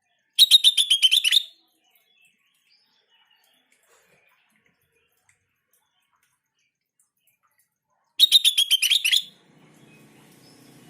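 Sooty-headed bulbul song in two phrases about seven seconds apart, each about a second of rapid repeated chattering notes. This is a masteran recording, bulbul song used to set other bulbuls singing.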